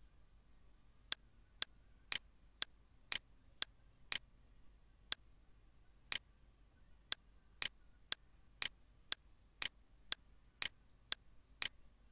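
Computer mouse clicking: about nineteen sharp single clicks, mostly half a second apart with a few one-second gaps.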